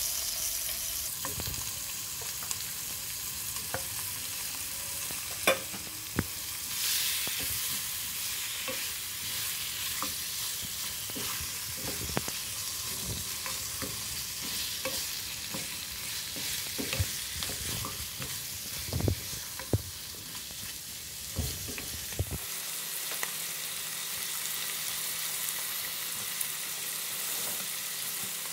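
Marinated chicken pieces sizzling in a pan with sautéed onion, garlic and ginger as they are stirred in: a steady frying hiss broken by scattered knocks of a utensil against the pan.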